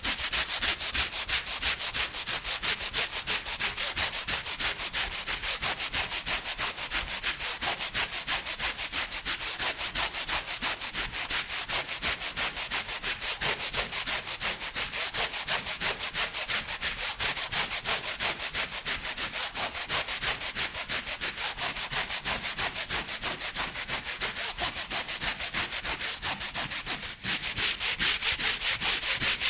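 A rug being scrubbed by hand: fast, even back-and-forth strokes of about three a second, with a brief pause near the end before the scrubbing resumes a little louder.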